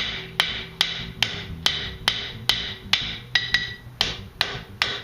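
Blacksmith's hand hammer striking hot steel stock on an anvil in a steady rhythm, about two and a half blows a second, each blow ringing briefly.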